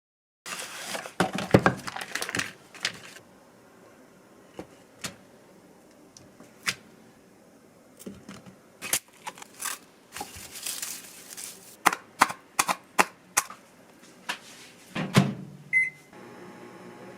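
Objects being handled in a small kitchen: a run of sharp clicks, taps and knocks, irregularly spaced. A single short electronic beep sounds near the end.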